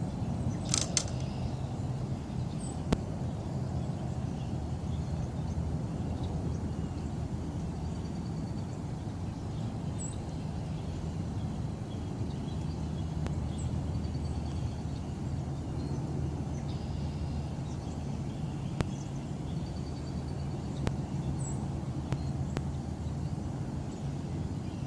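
Outdoor ambience: a steady low hum with occasional faint, short bird chirps, and a brief sharp rattle about a second in.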